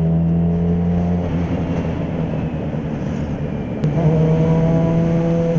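Yamaha XJ6 motorcycle's inline-four engine under way, its exhaust note holding a steady pitch, then going rough and uneven about a second in. Near four seconds in the steady note comes back and climbs slowly as the engine pulls again.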